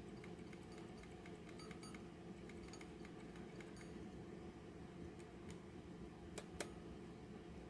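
Faint ticking of a 1940s wind-up alarm clock's movement, with two sharper clicks about six and a half seconds in.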